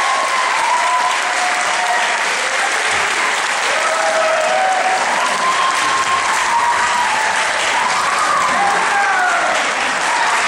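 Audience applauding steadily in an auditorium, with scattered shouts and whoops from the crowd over the clapping.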